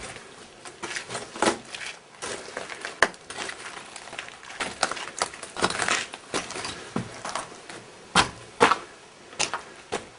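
Footsteps crunching over broken debris on the floor of a ruined building: irregular crunches and cracks, with two sharp ones about eight seconds in.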